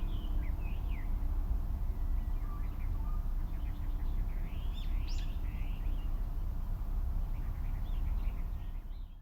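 Several small birds chirping and calling in quick, swooping notes, over a steady low outdoor rumble.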